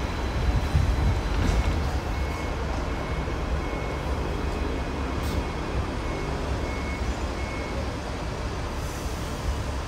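Hong Kong electric tram running along its street track: a steady low rumble of wheels on rail, with a few sharp clicks or rattles.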